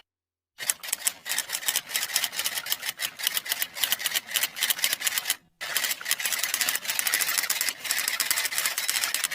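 Rapid, irregular typing clicks, several keystrokes a second, pausing briefly about halfway through before running on.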